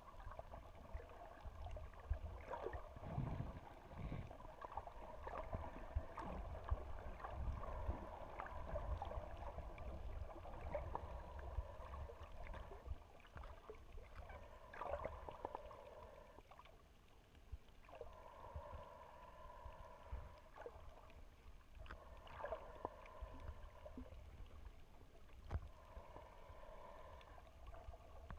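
Muffled underwater sound picked up through a camera's waterproof housing: a low rumble of moving water with scattered small knocks and a faint hum that fades in and out.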